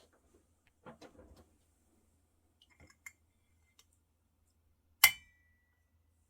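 Small handling sounds: a brief rustle, a few faint clicks, then a sharp clink about five seconds in that rings briefly, like a hard object touching glass or ceramic.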